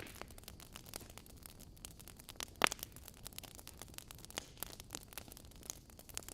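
Wood fire of burning logs crackling, with irregular sharp pops over a low hiss. The loudest pop comes about two and a half seconds in.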